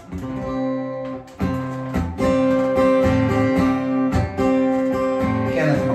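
Acoustic guitar strummed, playing the introduction to a song, with chords ringing on and a fresh strum every second or so.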